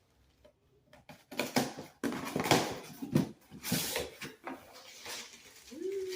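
Packaging rustling and crinkling in irregular bursts as a package is cut open with scissors and handled, after a quiet first second.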